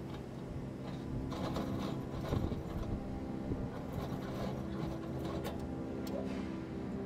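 A parked semi truck's diesel engine idling steadily, with scattered clicks and light rattles from about a second in.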